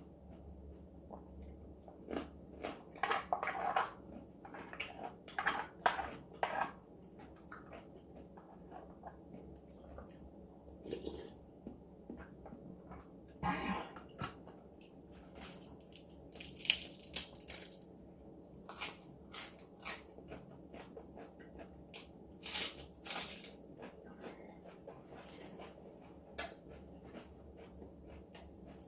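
Close-up eating sounds: chewing and crunching, with irregular clicks and cracks as crab meat and shell are worked at.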